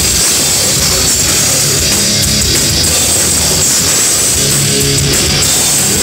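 Melodic death metal band playing live at full volume, with distorted electric guitars and a drum kit. It sounds harsh and distorted through a phone's microphone close to the stage.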